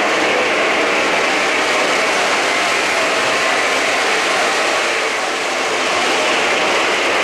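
O-gauge model train cars rolling along three-rail track: a steady mechanical running noise of wheels and motors on the rails, dipping briefly about five seconds in.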